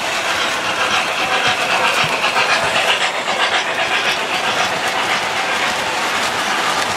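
Three-rail O-gauge model train running past close by: a steady rolling rumble and clatter of wheels on the track, loudest a few seconds in as the locomotive and cars go by.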